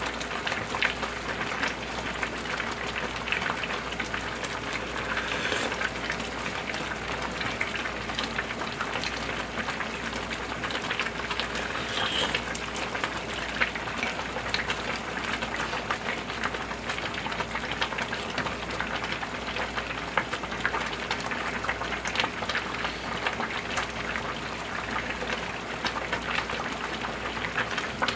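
Big stainless-steel stockpots of pork-backbone soup with dried radish greens (siraegi ppyeo-haejangguk) boiling on the stove: a steady bubbling with many small pops.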